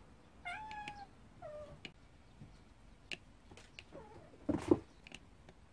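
Cat meowing twice, two short calls, the second falling slightly in pitch, then a louder short sound about four and a half seconds in, with a few faint clicks between. The calls are a mother cat calling her kittens to gather.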